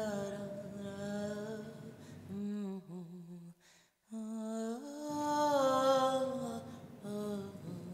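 A voice humming a slow, wordless melody in long held notes, breaking off briefly about halfway through.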